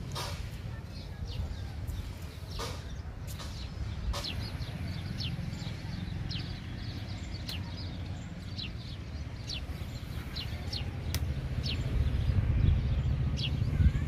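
Small birds chirping in short, scattered calls over a low rumble that grows louder near the end.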